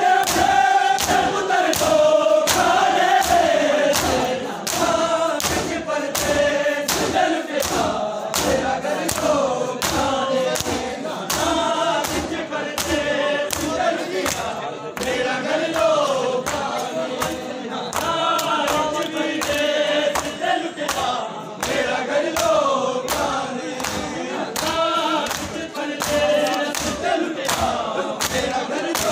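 Shia matam: a crowd of men beating their chests with their hands in unison, about two strikes a second, while men's voices chant a noha (mourning lament) in chorus over the beat.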